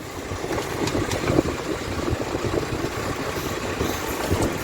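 Sportfishing boat's engine idling steadily, a low even rumble.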